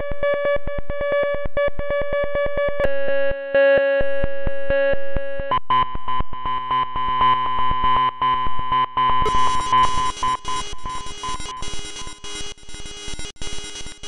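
Synthesised electronic tones from the bent.fm FM-synthesis app. They change abruptly in blocks: a fast-pulsing buzzy tone, a held chord about three seconds in, a denser pulsing texture, then a brighter, stuttering texture full of clicks from about nine seconds.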